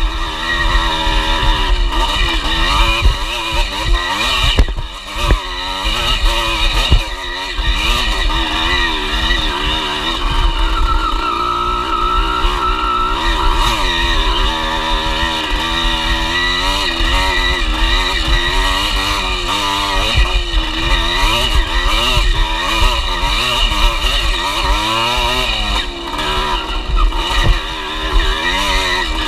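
Enduro dirt bike engine being ridden hard, its pitch rising and falling continuously as the throttle is worked over rough ground, with a few sharp knocks from the bumps.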